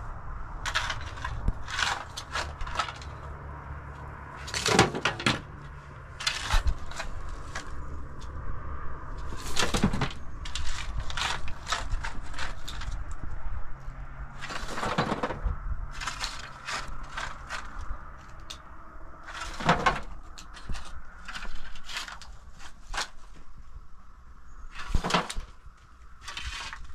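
Long-handled shovel scraping and scooping dirt and stones from rubble, with stones clattering, in repeated strokes a second to a few seconds apart.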